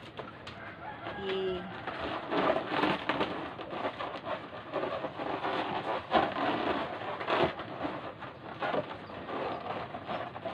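Inflated latex balloons rubbing and squeaking against each other and against hands as they are twisted together into a cluster, with irregular squeaks and scrapes throughout. A short low pitched note sounds about a second in.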